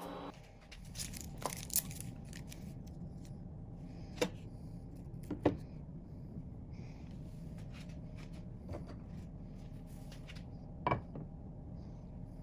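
A handful of short, sharp clicks and knocks, spaced irregularly, over a steady low background hum.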